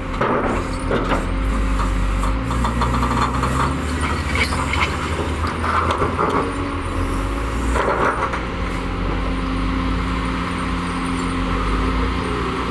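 Heavy diesel earthmoving machinery running, its engine note steady but shifting pitch a few times as load changes, with intermittent metallic clanking and rattling.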